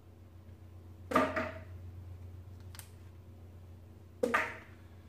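Two sharp metal clanks about three seconds apart, each ringing briefly, with a light click between them, as small parts are pulled off and set down during an engine teardown.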